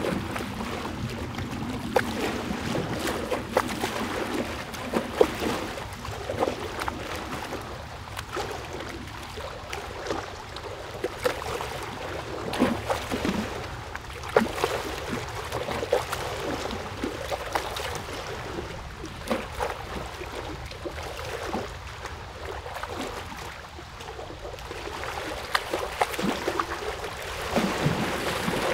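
Water running and lapping, with many small irregular splashes over a steady wash.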